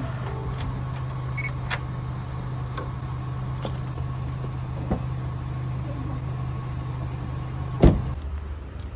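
A steady low mechanical hum with a few light ticks, then a single loud clunk of the car door latch as its handle is pulled, near the end; the hum stops just after it.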